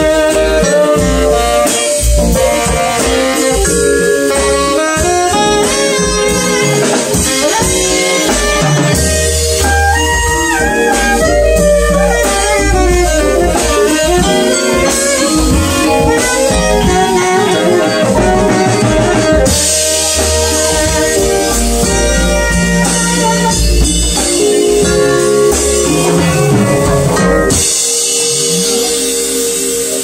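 Small jazz band playing live: saxophone out front over vibraphone, drum kit, congas and upright bass.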